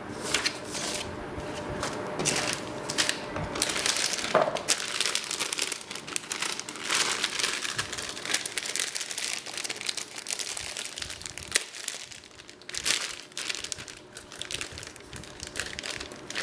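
Plastic packaging crinkling and rustling in irregular bursts as computer parts are unwrapped by hand.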